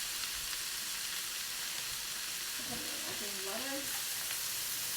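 Minced pork and mushrooms sizzling in a frying pan with a little water just added: a steady frying hiss.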